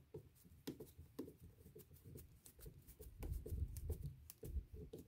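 Small screw being driven by hand with a screwdriver through a plastic RC-car axle housing into a nylon nut: a run of faint, quick clicks and scrapes from the tool and parts. Low handling bumps grow louder about three seconds in.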